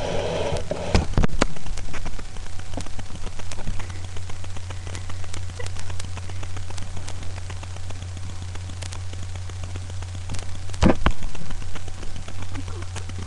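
A steady low hum with a hiss of background noise, broken by a few sharp knocks about a second in and again near the end.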